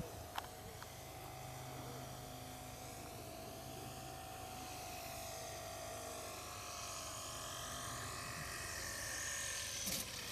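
Faint whine of an FMS P-40 Warhawk RC model's electric motor and propeller on its landing approach, the pitch drifting slowly up and down. Near the end comes a sudden rough rush of noise as it touches down on the grass.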